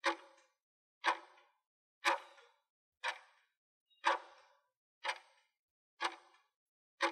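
Countdown timer sound effect: a clock-like tick once a second, eight ticks in all, each sharp with a short ringing tail.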